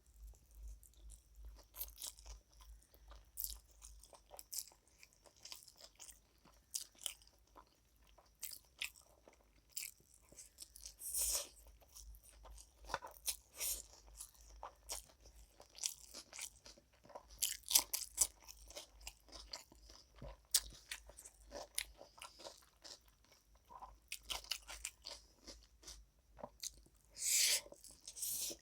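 Close-miked eating: irregular crisp crunching bites and chewing of food.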